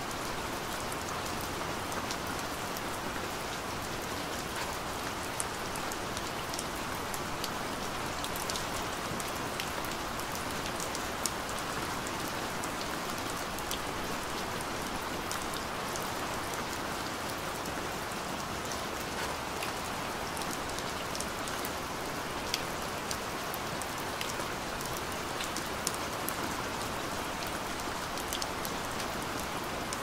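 Steady rain falling: a constant hiss with many small drop ticks scattered through it, and a few louder single drop hits standing out.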